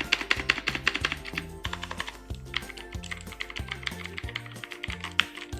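Rapid typing on a Marvo KG915G mechanical keyboard with blue switches, many sharp key clicks a second. Background music with a stepped bass line plays underneath.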